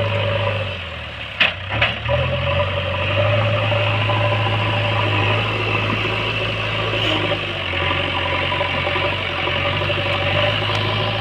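JCB backhoe loader's diesel engine running steadily, its pitch dropping and then picking up again in the first three seconds as it takes load. Two sharp knocks come close together about a second and a half in.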